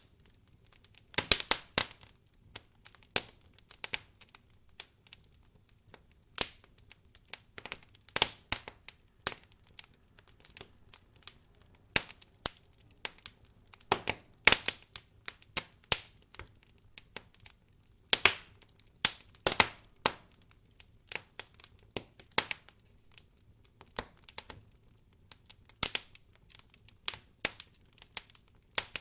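Wood campfire burning, with irregular sharp crackles and pops, some coming in quick clusters.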